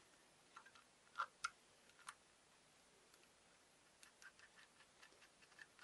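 Faint, scattered clicks of small metal parts inside an old gate lock's case being handled and fitted by hand. A few separate clicks come in the first two seconds, then a quicker run of light ticks near the end.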